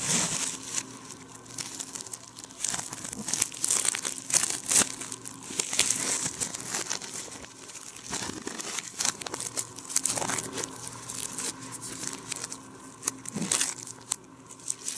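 Plastic packaging crinkling and rustling with tearing sounds, played backwards.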